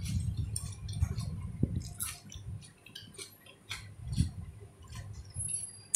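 A person chewing a mouthful of rice, chicken curry and raw onion, with an irregular run of low mouth sounds and short clicks and crunches.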